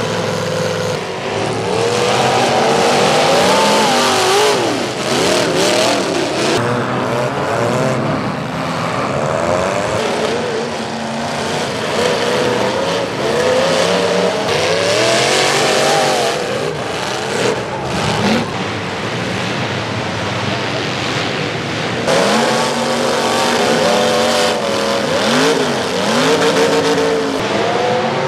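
Demolition derby cars' engines revving hard, rising and falling over and over as the cars ram each other, with several sharp metal impacts from collisions along the way.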